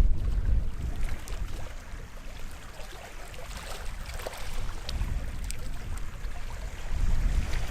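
Small sea waves washing onto the shore, with scattered light splashes and ticks. A low rumble is strongest at the start, eases off in the middle and swells again near the end.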